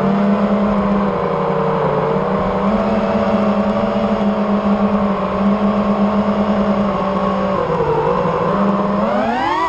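Armattan Rooster 5-inch FPV quadcopter's Underdog 2150kv brushless motors and props whining at a fairly steady pitch with small dips as the throttle changes, then rising sharply near the end as the throttle is pushed up.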